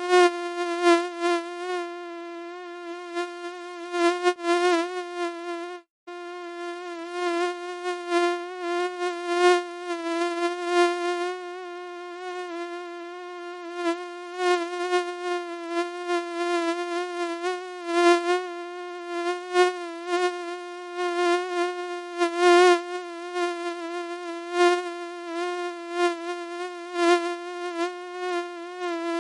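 Mosquito whining in flight: a steady high buzz that wavers slightly in pitch and swells louder and softer as it passes close. It cuts out for an instant about six seconds in.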